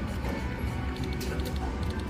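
Electronic slot-machine music and chimes over the steady din of a casino floor, with a constant low hum underneath and a few short high chimes about a second in.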